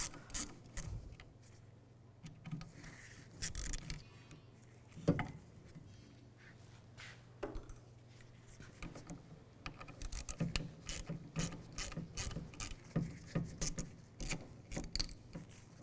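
Hand driver backing small T15 Torx screws out of a plastic tailgate handle bezel, with light scraping and scattered clicks of metal on plastic. The clicks come faster and more regularly from about ten seconds in.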